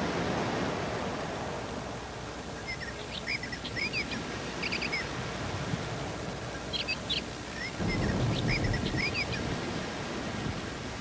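Steady close rustling noise of a black house cat's body pressed against the camera's microphone, swelling about eight seconds in. Over it come two short bursts of high, quick bird-like chirps, about three and seven seconds in.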